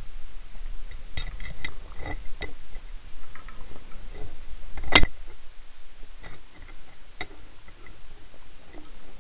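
Underwater sound picked up through a dive camera housing: scattered small clicks and knocks over a low rumble, with one sharp, much louder click about five seconds in.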